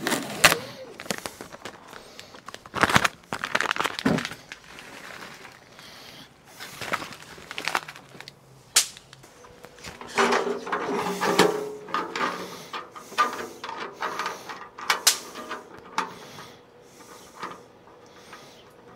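Hands working the sheet-steel body of a Country Smokers portable pellet grill: a run of sharp knocks and clicks as a sticker is peeled off and the lid is opened and handled. The loudest knocks come about 3 and 4 seconds in, and there is a busier patch of rattling around 10 to 12 seconds.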